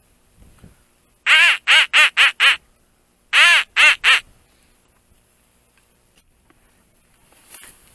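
Loud duck quacks: a quick run of five, then after a short pause three more.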